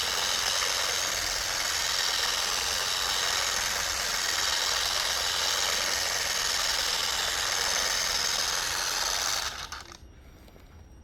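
SPTA 3-inch polishing machine with a black foam pad running steadily while spreading solid wax, then switched off about ten seconds in.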